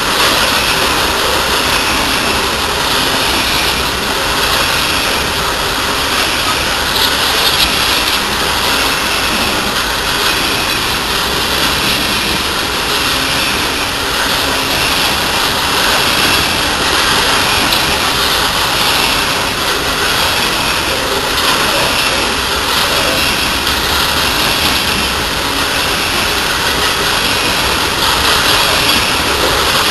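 Freight train of coal hopper cars rolling past at close range: steady, loud noise of steel wheels on the rails.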